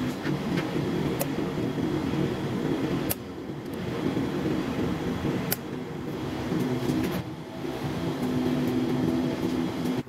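A steady low mechanical hum with a held tone, broken by brief clicks about three and five and a half seconds in. It drops away suddenly at the end.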